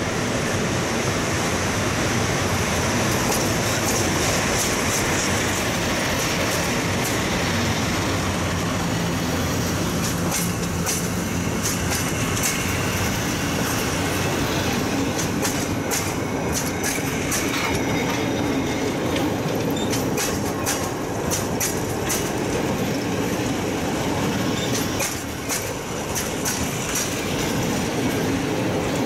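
EP07 electric locomotive and its passenger coaches rolling into the station past the platform: a steady rumble of wheels on rail, with a high squeal a few seconds in and rapid clicking of the bogies over rail joints from about ten seconds in.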